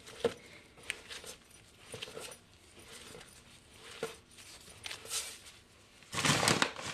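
Hands kneading and patting soft, sticky potato pizza dough on a floured wooden board: scattered soft taps and squishes, then a louder rustling, brushing sound near the end.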